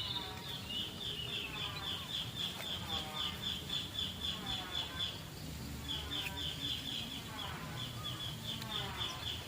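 Birds chirping: a fast, high-pitched train of short notes, about four a second, with a brief break around the middle, over lower falling calls repeated about once a second.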